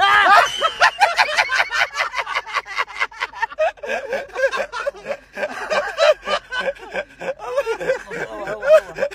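Several people laughing hard in rapid, continuous bursts.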